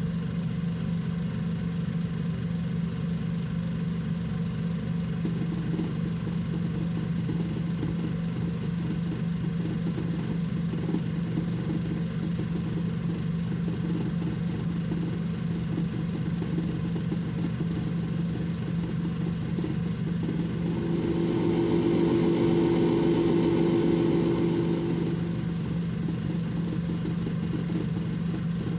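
Steady low machine hum. About two-thirds of the way through it swells louder for roughly four seconds with a rushing noise and a higher tone, then settles back.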